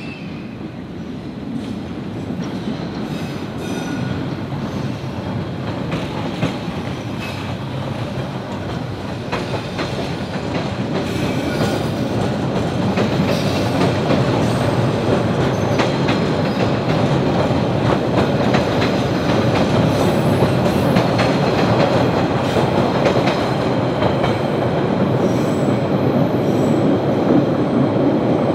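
MBTA subway train running on the rails, growing steadily louder, with wheels clicking sharply over rail joints.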